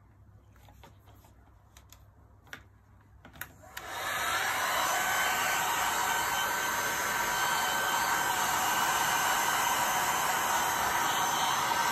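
Handheld electric heat gun switched on about four seconds in, then blowing steadily with a faint high whine, used to push wet epoxy resin around. A few faint handling clicks come before it starts.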